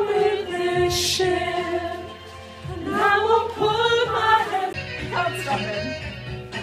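Karaoke: a man singing loudly into a handheld microphone over a backing track, holding long notes. The sound changes abruptly about two-thirds of the way through.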